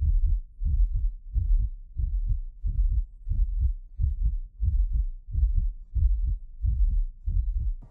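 Heartbeat: a steady, deep lub-dub repeating about once a second.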